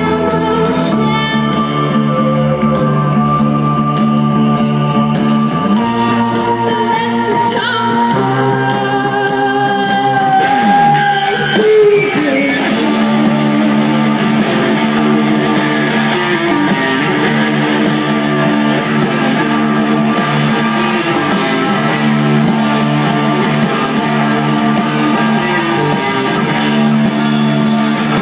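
A live rock band playing loudly through the PA, with singing, guitar and keyboards, heard from within the audience.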